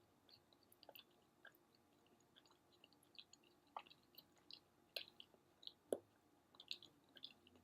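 Faint, close-up chewing: soft, wet mouth clicks and smacks at irregular intervals, with a few louder ones in the second half.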